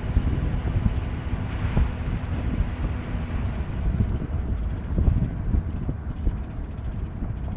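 Jeep CJ-8's AMC 258 4.2-litre inline-six running while driving, with road rumble and wind buffeting the microphone. A steady hum in the engine note drops away about three and a half seconds in.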